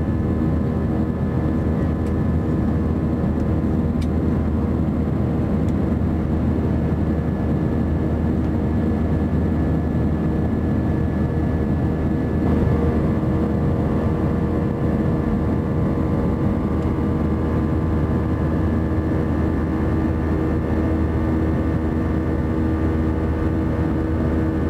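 Airbus A320-200 jet engines heard from inside the cabin during the climb after takeoff: a steady, loud drone with a constant hum and whine. About halfway through, the pitch of the whine shifts.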